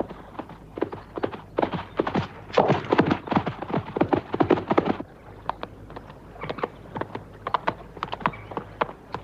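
Hoofbeats of a ridden horse: a quick, dense run of hoof strikes for about the first five seconds, then a thinner, slower beat.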